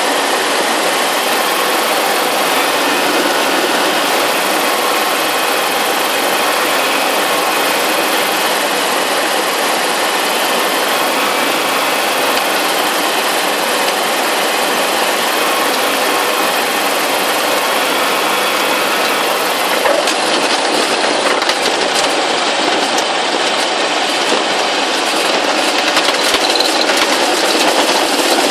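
Steady engine and propeller drone with rushing air, heard inside the cabin of a JetFox light aircraft during landing. About two-thirds in, rapid knocks and rattles join the drone.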